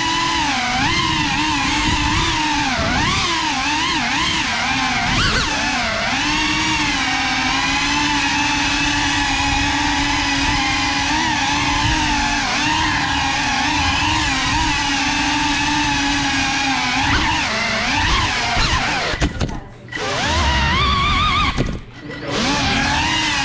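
GEPRC CineLog 35 cinewhoop's brushless motors and ducted propellers whining steadily, the pitch wavering up and down with throttle. Twice near the end the throttle is cut and the whine nearly drops out, then comes straight back.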